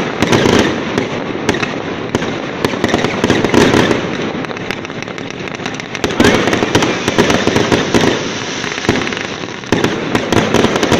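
Aerial fireworks going off in rapid succession: a dense run of bangs and crackling, with heavier volleys near the start, about six seconds in, and near the end.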